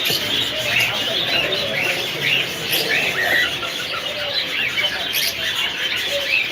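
A flock of caged parrots chirping and squawking together, many short calls overlapping without a break.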